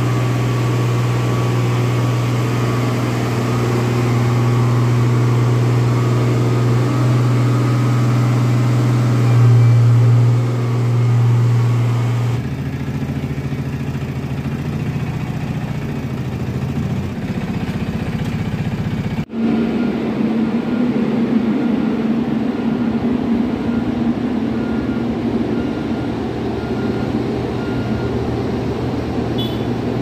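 Diesel engines of road-paving machines running steadily: first a deep, even engine drone from a road roller, which changes abruptly about twelve seconds in; after a cut about two-thirds through, a different engine runs on with a steady, higher hum.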